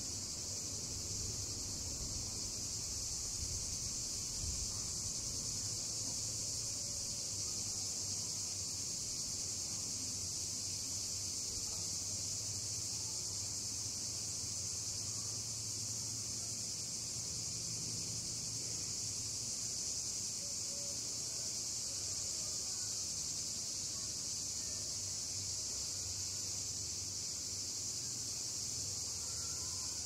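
Cicadas singing in a steady, high-pitched chorus, with a faint low hum underneath.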